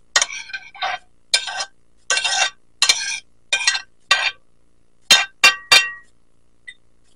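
Metal spoon scraping chopped tomato and cilantro off a ceramic plate into a glass bowl, in about seven short strokes. Three sharp clinks with a short ring follow as the spoon taps against the dishes, about five seconds in.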